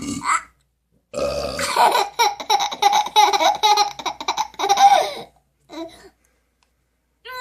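A burp, then a baby laughing hard at it, a long run of quick, high-pitched laughing bursts lasting about four seconds. There is a brief vocal sound just before the burp and another shortly after the laughter stops.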